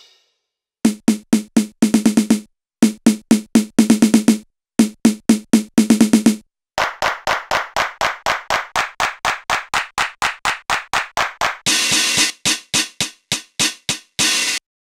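Oberheim DX drum machine samples, recorded through an Akai MPC3000, triggered in quick rolls from a keyboard. Three bursts of pitched drum hits come at about six a second, then a longer run of sharper, brighter hits, and near the end a few noisier, cymbal-like hits.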